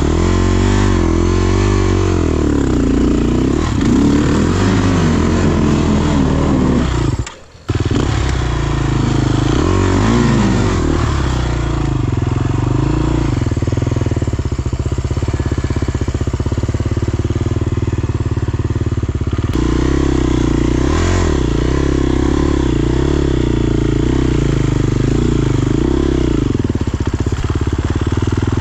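Enduro dirt bike engine revving up and down under load as the rider climbs. The engine sound breaks off for a split second about seven seconds in.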